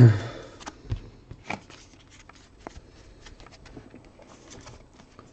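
A stack of trading cards being handled: squared up with a short loud knock at the start, then thumbed through card by card, with scattered light clicks and rustles of card stock sliding against card stock.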